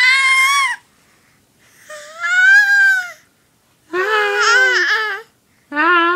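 Four loud, high-pitched crying wails, each about a second long with short pauses between, the pitch bending up and down within each cry.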